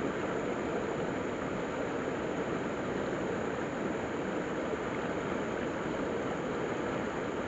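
Shallow stream running over rocks: a steady rushing of water that holds even throughout.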